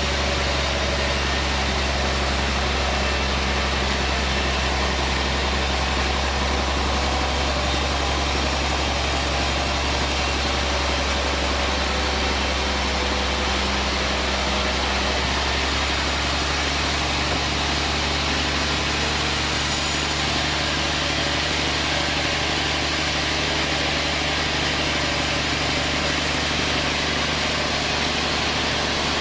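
Band sawmill machinery running with a steady drone and a constant low hum, holding the same level throughout.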